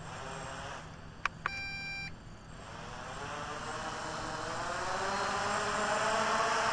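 MJX Bugs 3 quadcopter's brushless motors and propellers spinning up, the whine rising in pitch and getting steadily louder from about two and a half seconds in. A click and a short electronic beep come about a second and a half in.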